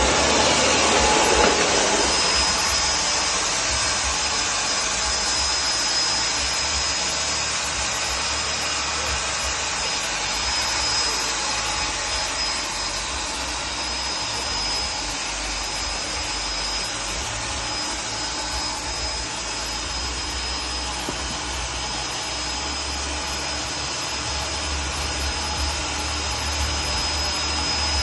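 Handmade mobile sawmill running: a steady, even machine noise with a thin, constant high whine over it.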